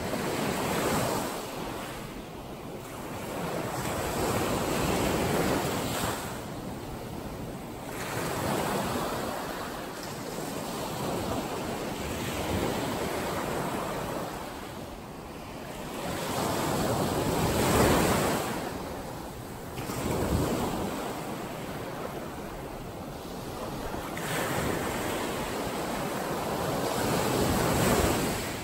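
Small ocean waves breaking and washing up a sand beach, the surf swelling louder and fading away every few seconds as each wave comes in.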